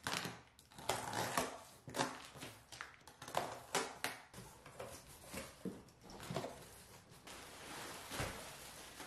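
Box cutter slicing through packing tape on a cardboard box, a string of sharp rips and scrapes as the tape is cut and the cardboard flaps are handled. Near the end the plastic wrapping inside rustles as it is pulled out.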